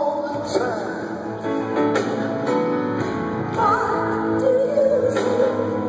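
A live rock band with guitar, keyboards and drums plays on while singers hold and bend long sung notes, heard from the audience.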